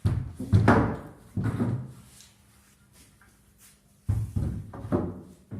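Heavy wooden thuds and knocks from bed-box carpentry work: three in the first two seconds, then another group of three from about four seconds in.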